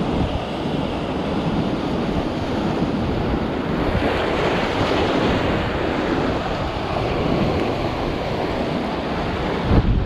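Rough sea surf breaking and washing over rocks, with strong wind buffeting the microphone; the surge swells up about four seconds in.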